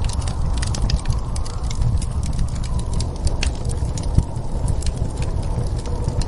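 Wood fire crackling with many scattered sharp pops and ticks over a steady low rumble of storm wind.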